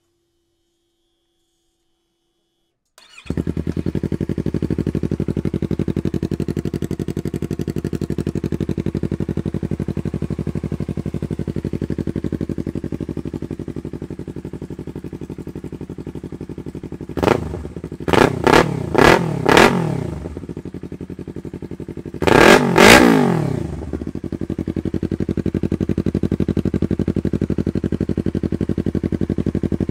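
Yamaha YZF-R3's parallel-twin engine breathing through a Spark full titanium exhaust system: it starts about three seconds in and idles steadily. About seventeen seconds in it gets a quick run of short throttle blips, then about twenty-two seconds in one longer rev that rises and falls, before settling back to idle.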